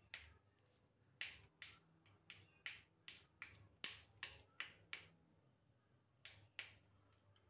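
Kitchen knife dicing paneer on a stainless steel plate: a string of sharp clicks as the blade goes through the cheese and taps the metal, irregular at about two or three a second, pausing for about a second near the end before a few more.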